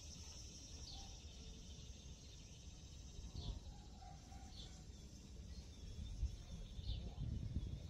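Outdoor summer ambience: a steady high insect drone with a bird giving four short downward-sliding calls, over a low rumble that grows a little in the second half.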